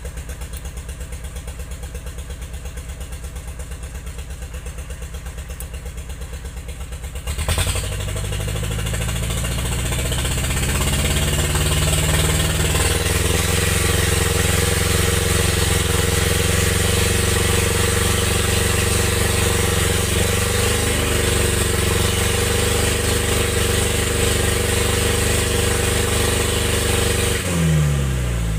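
An engine running at idle with an even pulse, then opened up sharply about seven seconds in and held at high revs, before the revs fall away again near the end.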